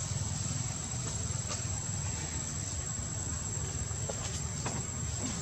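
Steady high-pitched insect drone over a low rumble of outdoor background noise, with a few faint clicks in the second half.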